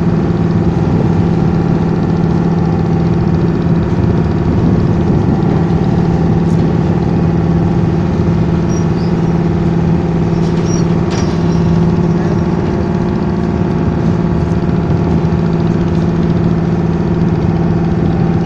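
A boat's engine running steadily under way, an even, unbroken low drone.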